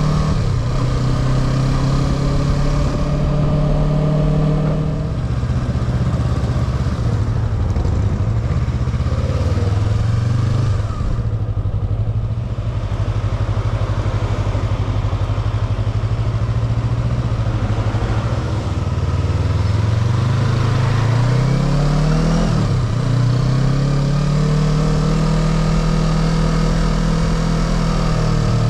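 Motorcycle engine running under way, heard from the rider's seat over a steady rush of wind and road noise. Mostly it holds a steady speed. Near the end the revs climb, drop sharply once and climb again.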